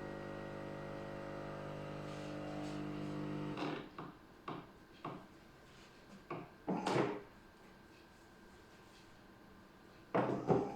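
Nivona NICR 965 coffee machine making a milk drink: a steady mechanical hum that cuts off about three and a half seconds in, then a few short hissing spurts and clicks, the longest a few seconds later. A louder noise starts near the end.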